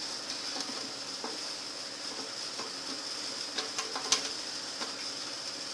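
A few light clicks and knocks from handling a small speaker box, the loudest about four seconds in, over a steady high hiss.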